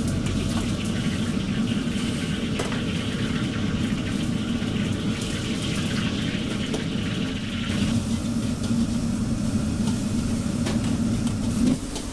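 Gas wok stove burner running with a steady low rumble under a wok of water at a rolling boil.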